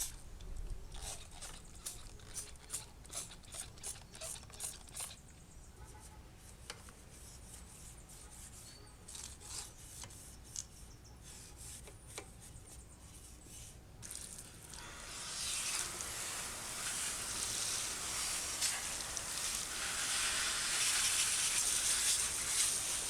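A toothbrush scrubbing a bicycle chain and derailleur with degreaser in quick strokes that thin out over the first few seconds. About two-thirds of the way through, a steady spraying hiss starts, grows louder and runs on.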